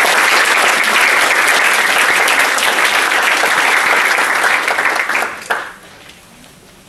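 Audience applauding, then stopping about five and a half seconds in.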